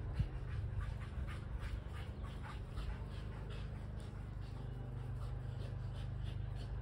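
A dog panting in quick, regular breaths, with a single thump just after the start.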